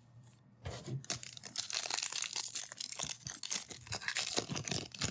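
Trading card pack wrapper being torn open and crinkled by hand, a dense crackling rustle starting about a second in.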